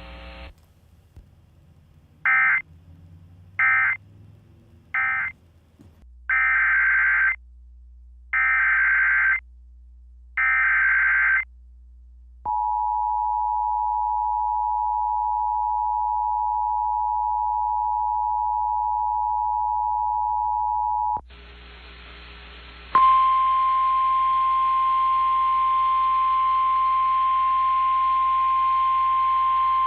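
Emergency Alert System signalling: three short SAME data bursts closing the previous message, then three longer SAME header bursts for the next alert, then the EAS two-tone attention signal held about eight seconds. It cuts off, radio hiss comes in, and about two seconds later a steady single-tone NOAA Weather Radio warning alarm begins and holds.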